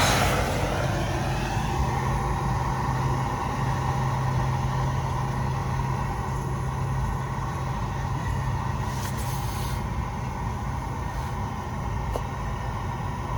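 Propane burner running steadily with a strong flame, a continuous roar used to heat a rust-seized part on the van's steering and drive shaft so it will come free.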